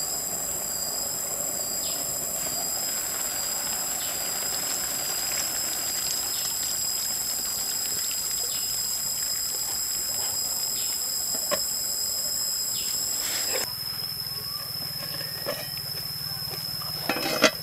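Eel and banana-flower milk soup simmering in a pan over a wood fire, a steady hiss with small crackles, under the steady high-pitched drone of insects. About three-quarters through the sound changes, one insect tone dropping out, and there is a sharp knock near the end.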